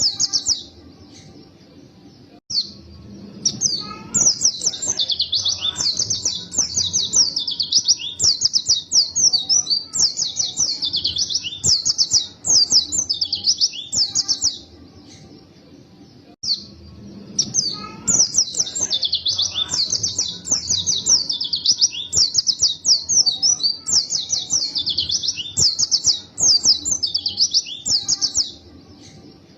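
A pleci (white-eye) singing long, fast, high-pitched phrases of quick down-slurred notes. The song pauses briefly just after the start and again about halfway through, then resumes.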